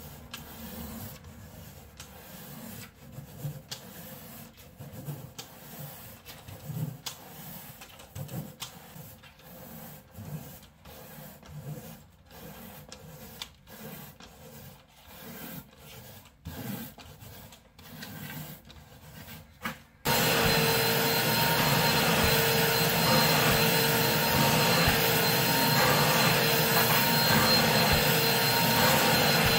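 A long-handled brush stroked repeatedly across a wool rug's pile, a soft rubbing scrape with each stroke. About twenty seconds in, the vacuum of a carpet extractor cuts in suddenly and runs loud and steady, with a constant whine.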